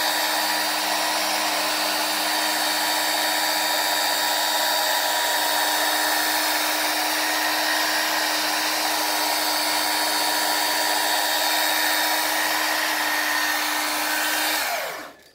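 Electric polishing machine with a felt pad running steadily against car window glass, polishing out scratches with glass-polishing paste: a constant motor whine with the pad rubbing on the glass. Near the end it is switched off and winds down.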